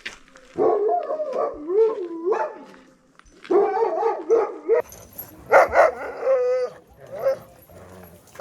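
Sled dogs howling and barking in several bursts of pitched calls, with one longer call wavering up and down in pitch past the middle.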